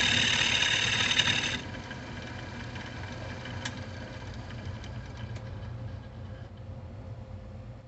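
Wood lathe turning a cherry bowl blank, with a gouge cutting the wood in a loud, steady scraping hiss that stops suddenly about a second and a half in as the tool comes off. The lathe's motor hum carries on underneath, with a few faint clicks.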